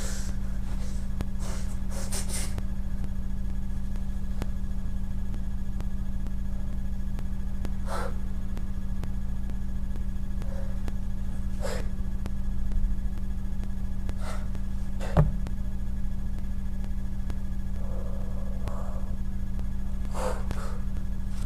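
Steady low electrical hum, with a few short puffs or swishes of air scattered through it and one sharp knock about fifteen seconds in.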